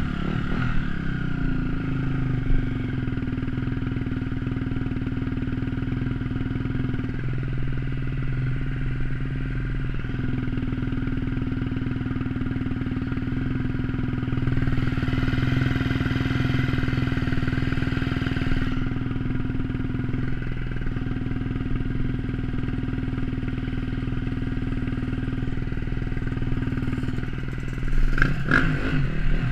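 Enduro dirt bike engine idling steadily while the bike stands still, with a few seconds of hiss about halfway through. Near the end, engines rev up and down as another dirt bike rides past close by.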